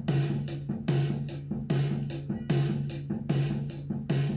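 Drum kit recording from an overhead microphone played back through a compressor set to a very short attack, clamping down hard on each hit. A steady beat with a strong hit about every 0.8 seconds, lighter cymbal taps between, and a low held note underneath.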